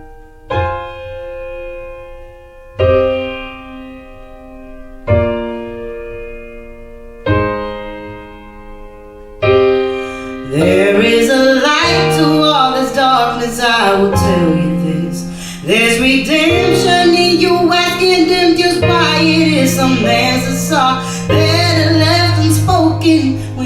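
Music: a slow introduction of single piano chords struck about every two seconds and left to ring out, then about ten seconds in the full song comes in with a female voice singing over bass and keyboards.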